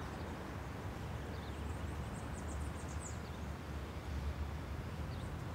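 Quiet background ambience with a steady low rumble, and a few faint bird chirps in quick clusters, the last one near the end.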